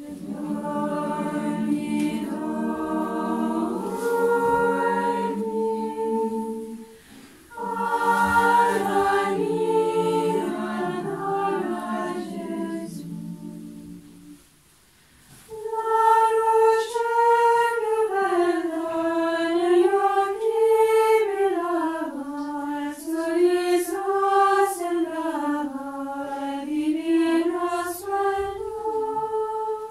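Nuns' choir of women's voices singing a cappella. In the first half they sing in several-part harmony. After a short pause about halfway through, they sing one melody together in unison, winding up and down on long held syllables.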